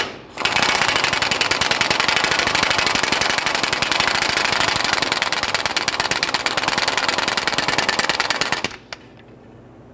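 Impact wrench hammering at a fast, even rate for about eight and a half seconds, then stopping abruptly near the end. It is backing off the screw of a torsion bar key unloading tool, slowly releasing the tension on the truck's front torsion bar.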